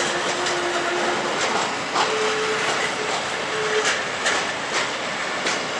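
Wagons of a military freight train rolling past, with wheels clicking irregularly over the rail joints. Thin, steady squeals sound in the first second and again from about two seconds in to nearly four.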